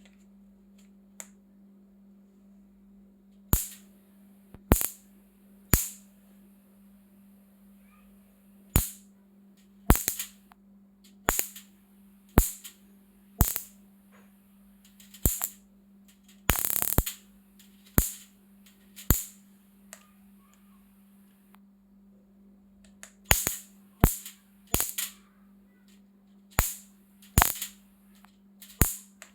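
Electric spark discharges: about eighteen sharp snapping cracks at irregular intervals, with one longer buzzing arc about halfway through, over a steady low hum.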